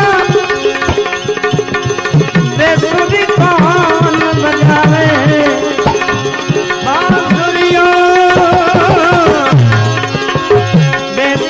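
Indian devotional bhajan music: tabla strokes with deep gliding bass notes under a melodic instrument playing an ornamented, wavering tune.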